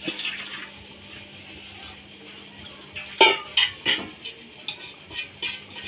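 Water from parboiled rice pouring and splashing out of a metal pot, then metal pots and a spoon clanking and clinking against each other about three seconds in.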